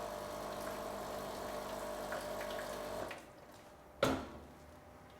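Pod espresso machine's pump humming as it pushes water through the group head to loosen a dried, stuck coffee pod, with water running. It stops about three seconds in, and a sharp click follows about a second later.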